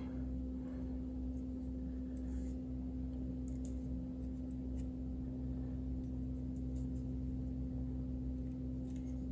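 Steady low hum with a few faint clicks and light rubbing from hands handling a plastic model part and a wooden clothes-peg clamp.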